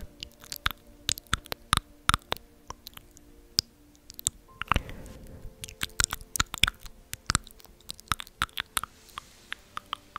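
Close-miked ASMR trigger sounds: crisp, irregular clicks and crackles, several a second, with a breathy whoosh about five seconds in.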